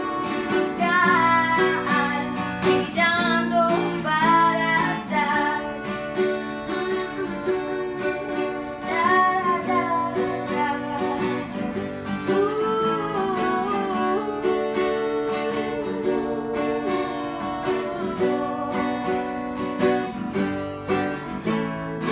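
Live acoustic band music: acoustic guitar and electric bass with a woman singing and strumming a small string instrument.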